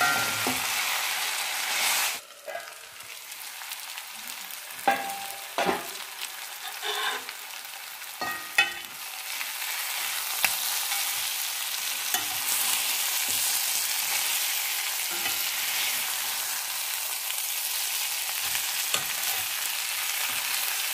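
Chicken chukka sizzling as it roasts in oil in a kadai, stirred and scraped with a metal spatula, with scattered clinks of the spatula on the pan. The sizzling drops away about two seconds in and comes back steadily from about ten seconds.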